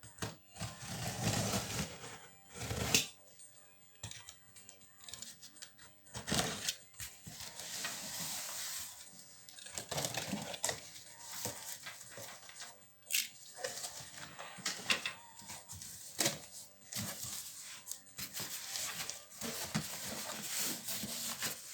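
A cardboard shipping box being handled and opened: irregular rustling, scraping and sharp knocks of cardboard and packing.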